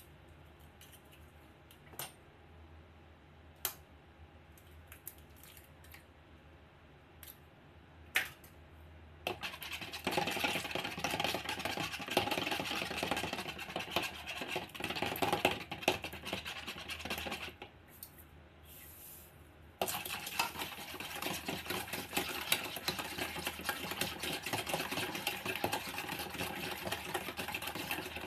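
A few sharp taps as an egg is cracked, then a wire whisk beating eggs in a bowl, a fast continuous clatter that stops for about two seconds about two-thirds of the way through and then resumes.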